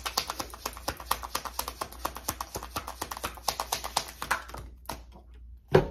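A deck of tarot cards being shuffled by hand: a rapid run of crisp card clicks that thins out after about four and a half seconds. A single sharp thump comes near the end.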